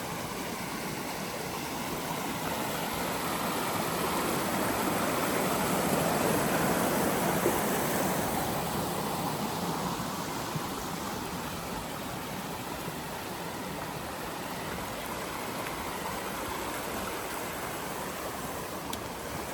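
Stream running over rocks, a steady rush of water that grows louder a few seconds in and then eases back.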